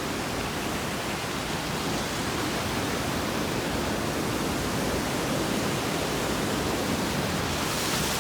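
Steady rushing of a creek's water, an even noise with no break, growing a little brighter near the end.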